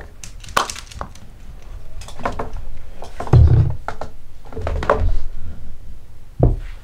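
Small cosmetic containers and other objects being handled and set down on a desk: a string of knocks and clicks, with a few heavier dull thumps around the middle.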